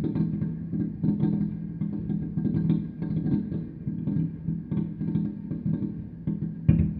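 Music with plucked guitar and bass, its notes picked in quick short strikes over a steady low line. A single sharp thump stands out near the end.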